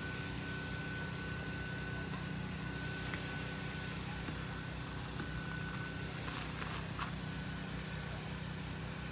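Steady low mechanical hum with a thin high steady tone over it and an even background hiss.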